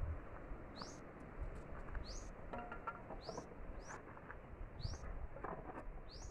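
A bird repeating a short, high, rising call about every second and a quarter.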